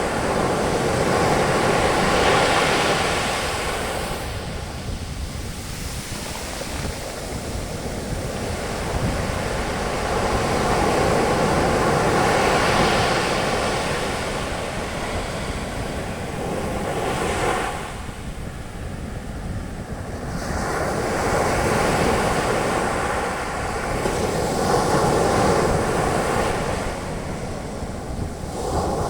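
Sea waves breaking and their foam washing up the beach, a steady surf hiss that swells and falls back every few seconds.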